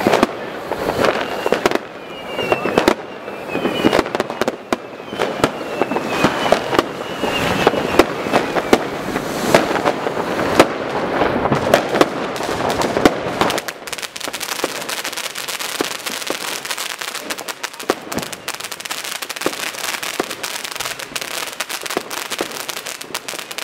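Consumer fireworks going off: a string of sharp bangs and firecracker reports, turning about halfway through into a dense, steady crackle.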